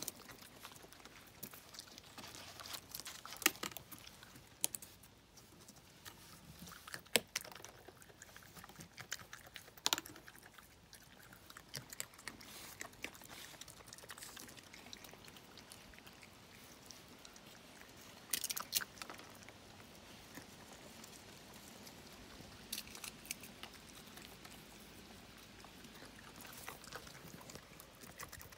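A raccoon eating among peanut shells on a wooden deck: irregular crunching and clicking, with the sharpest cracks about 3, 7, 10 and 18 seconds in.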